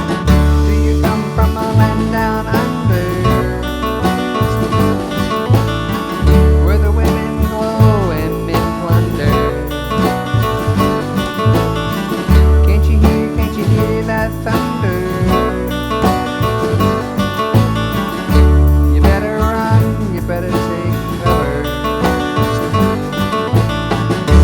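A band playing an instrumental passage: guitars with bending lead lines over bass and a steady drum beat, with a country feel.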